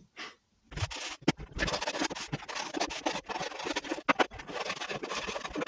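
Beading being sanded and brushed down by hand, sped up: fast, continuous scratchy rubbing strokes with no motor sound.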